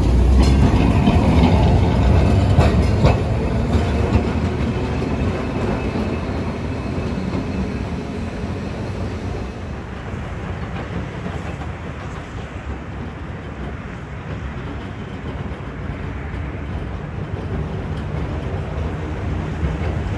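Vintage electric tram running past close by: a loud low rumble, with a few sharp clicks of its wheels over the rail joints in the first three seconds or so. After that comes a quieter, steady rumble and hiss as a tram approaches.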